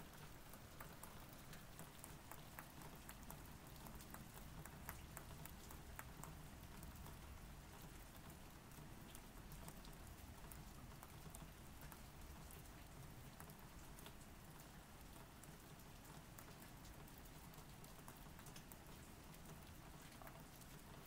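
Faint, steady patter of light rain: many small scattered ticks over a low hiss and a soft low rumble.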